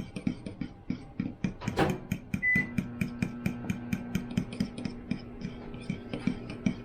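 A utensil clicking and scraping against a bowl in quick, even strokes as barbecue sauce and mango puree are stirred together. A steady low hum comes in about two seconds in.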